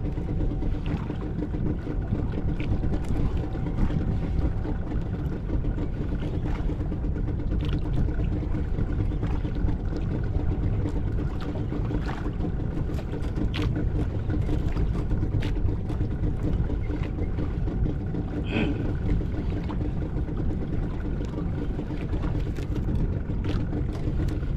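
A fishing boat's engine running at a steady idle, a constant low drone with a hum, mixed with wind and water noise and scattered light ticks.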